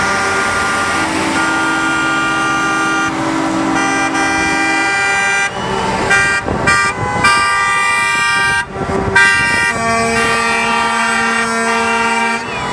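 Truck air horns from a passing convoy of semis and oilfield trucks, several sounding at once in long, overlapping blasts with a few short breaks.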